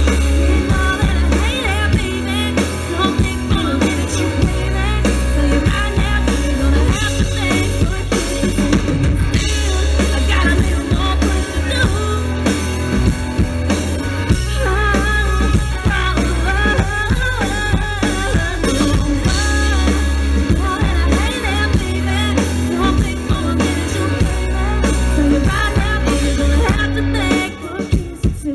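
Female country singer performing live with a band, drum kit beating under her voice, with heavy bass.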